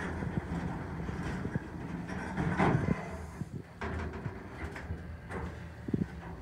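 Hydraulic elevator doors sliding shut, ending in a loud thud about two and a half seconds in, over a steady low hum. A short knock follows near the end as the car gets ready to rise.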